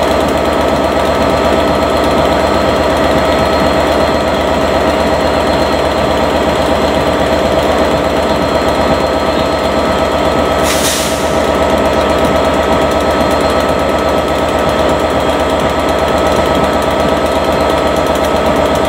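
Diesel train engine running steadily with a rapid, even throb. A short hiss comes in about eleven seconds in.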